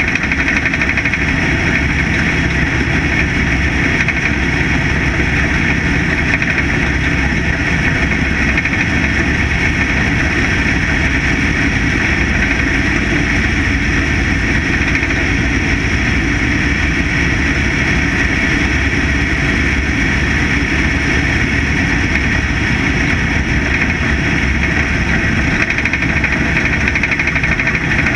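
Factory stock dirt-track race car's engine running hard and steady at racing speed, heard on board the car, with no let-up in the sound.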